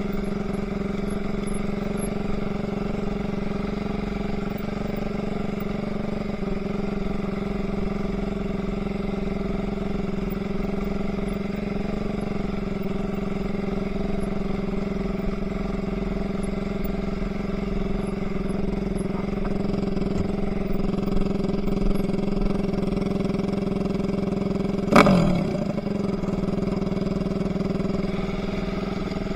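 Enduro motorcycle engine running at a steady, unchanging pitch. A single sharp knock cuts in near the end.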